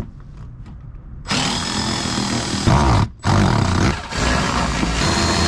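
Cordless power drill or driver running in three bursts, the first starting about a second in, with short breaks between them. It is most likely backing out the fasteners of an under-engine plastic shroud.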